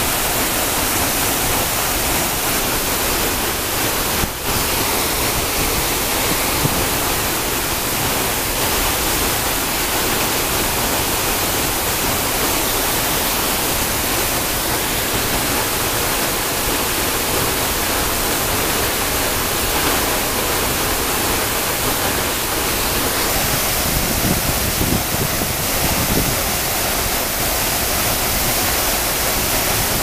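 Steady, loud rush of water falling down a waterfall over 40 m high: an even hiss spread across all pitches, with a brief dip about four seconds in.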